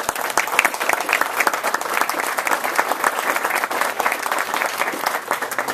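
An audience applauding, a dense patter of many hands clapping that starts just before and fades away right at the end.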